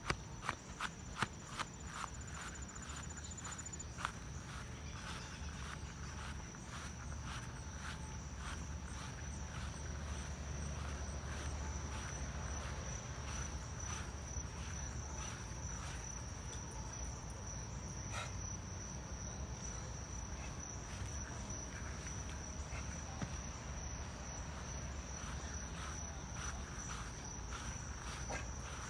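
Insects chirring in one steady, high-pitched drone, with a person's footsteps on grass, most distinct in the first few seconds.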